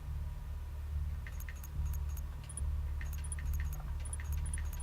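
A run of short, sharp clicks, some with a brief high beep, coming irregularly a few times a second, like menu clicks while scrolling through a game's map menu, over a steady low hum.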